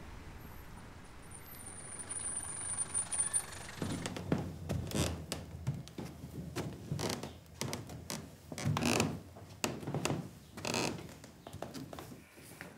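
A run of irregular footsteps and knocks on carpeted wooden stairs, a woman in high-heeled shoes stepping on them, starting about four seconds in after a few seconds of steady background hiss.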